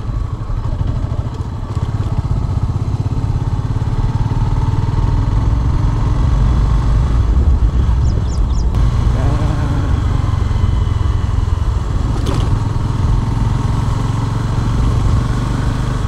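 Motorcycle engine running as the bike is ridden along, a steady low rumble that grows a little louder over the first few seconds.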